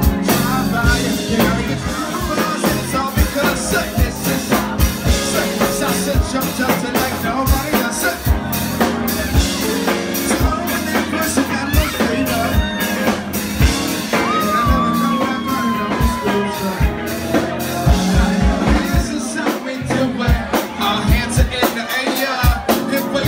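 Live band playing: drum kit keeping a steady beat under electric guitars, with a male singer at the microphone.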